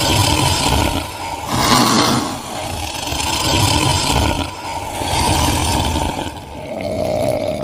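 Horror sound effect: a loud, noisy rumble that swells and ebbs every second or two, with a hiss over it.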